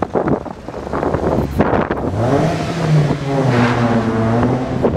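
Sports-coupe engine revving hard as the car accelerates away inside a tunnel. About two seconds in, the engine note comes up and climbs, then dips slightly and holds steady until near the end.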